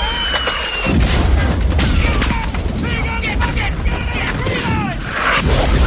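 Movie battle sound mix of rapid rifle and machine-gun fire with booming explosions, and men shouting over it.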